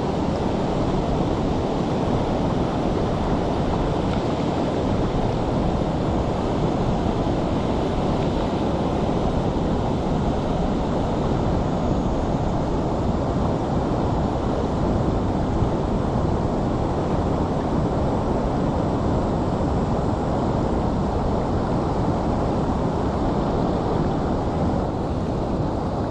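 Steady rush of a fast-flowing river, a continuous even roar of water that holds at one level throughout.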